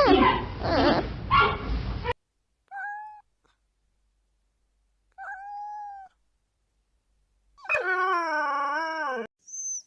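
Animal calls. A dense chorus of overlapping high yelping cries cuts off about two seconds in. Two short, thin whining calls follow, then a longer, fuller wavering call and high chirps near the end.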